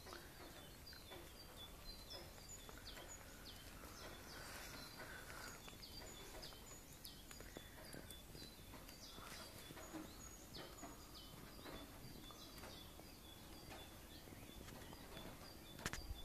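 Faint birdsong outdoors: many short, high chirping notes from small birds, repeated throughout over a quiet background hiss. A brief knock near the end.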